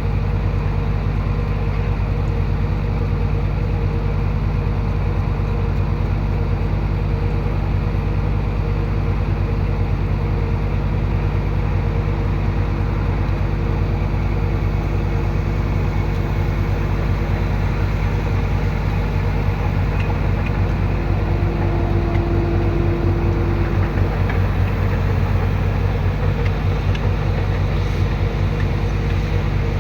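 Diesel engine of heavy earthmoving machinery running steadily, with a brief swell in level about two-thirds of the way through.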